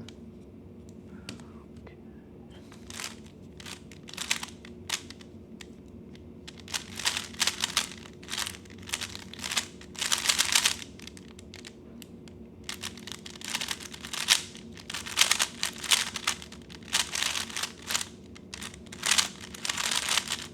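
3x3 Rubik's speedcube being turned fast during a timed solve: rapid runs of plastic clicks and rattles in bursts with short pauses, sparse at first and dense from a few seconds in.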